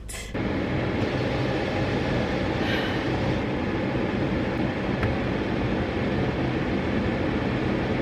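Moving train running steadily: a continuous rumble with a low hum.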